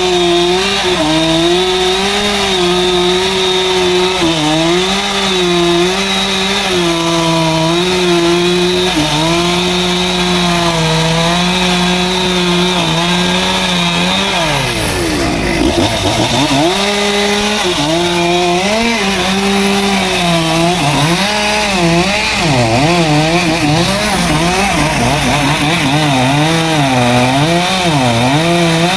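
Chainsaw running at high throttle while cutting wood, its pitch sagging and recovering as the chain takes the load. About halfway through, the throttle drops briefly almost to idle and is then opened up again.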